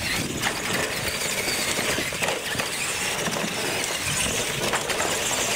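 Two radio-controlled monster trucks racing flat out on concrete: a steady whine of motors and gears over tyre noise, with a few knocks as they bounce over the wooden ramps.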